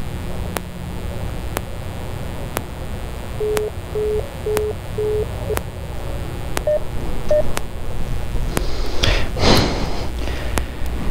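Electronic beeps from a gate intercom keypad: four short, evenly spaced lower beeps, then two higher beeps, with a click about once a second and a steady low rumble beneath. A loud rush of noise comes about nine seconds in.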